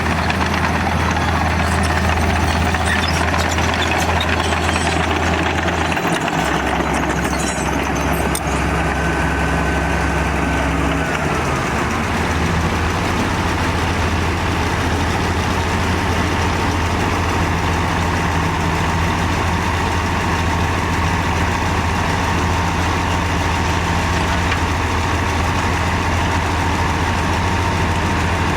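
Heavy diesel earthmoving machinery running steadily. Its low engine note shifts about six seconds in and again about twelve seconds in.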